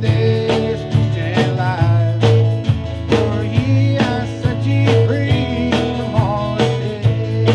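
Live gospel song: a man singing with acoustic guitar, backed by a band with drums and bass guitar keeping a steady beat.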